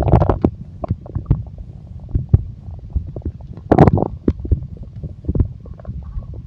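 A human stomach growling and gurgling: a low rumble broken by many irregular small pops and bubbling gurgles, with louder gurgling surges at the start and about four seconds in.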